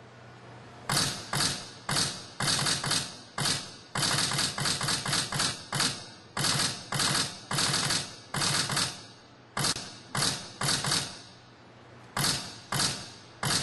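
Sharp knocks from a hand-held wooden striker, each with a short ringing tail, coming in quick irregular runs of several a second. There are brief pauses near the start and again about three-quarters of the way through.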